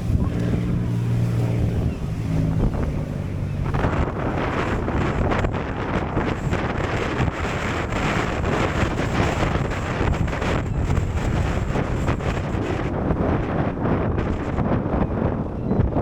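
A boat engine hums steadily for the first few seconds; then strong wind buffets the microphone over the sound of a choppy sea, a loud rough rushing that lasts to the end.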